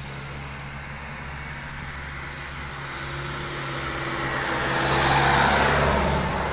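A motor vehicle passing by, its sound building to a peak about five seconds in and then fading, over a steady low hum.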